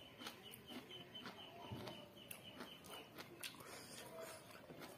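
Close-miked eating sounds of chicken and rice eaten by hand: chewing, lip smacks and wet mouth clicks. A faint high chirp repeats several times a second behind it, stopping about three seconds in.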